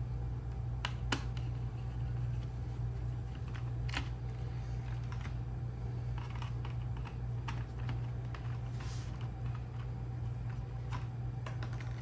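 Scattered small clicks and ticks of a hand screwdriver working screws out of a robot mop's motherboard, at irregular intervals over a steady low hum.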